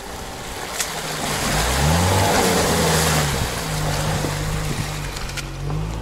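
Renault Duster crawling through a muddy puddle: its engine gains revs about a second and a half in, then holds a steady pull, over the slosh and splash of water and mud churned by the tyres.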